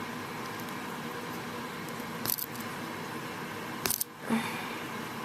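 Sharp metallic clicks from a Victorinox Swiss Army knife being handled while its tools are prised at, two of them about two and four seconds in, over a steady background hum.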